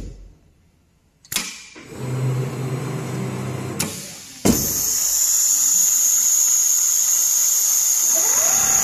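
Richpeace large-format automatic sewing machine working. After a short quiet moment and a knock, a steady low motor hum plays, then about halfway through a sudden, loud, steady hiss with a high whine sets in and holds.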